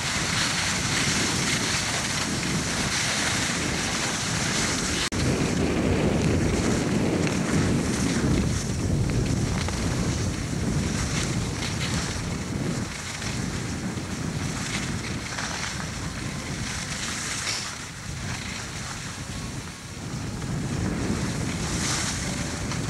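Wind buffeting the camcorder's microphone while skiing downhill, mixed with the hiss of skis sliding on snow, rising and falling with the run.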